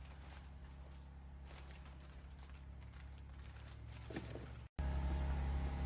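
Faint, steady low hum of background room tone, with no clear event. About four and a half seconds in it drops out for a moment and comes back louder.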